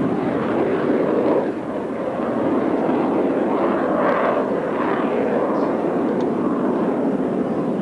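Jet noise from Blue Angels F/A-18 Hornets in flight: a loud, steady rush with a brief dip about a second and a half in and a swell around four seconds in.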